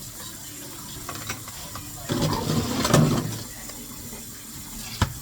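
Water running from a tap into a sink, with a louder, rougher rush about two seconds in and a couple of sharp knocks near the end.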